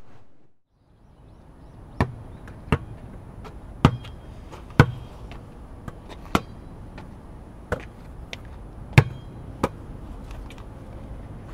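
A ball thudding sharply about eight times at uneven intervals, bouncing and being struck.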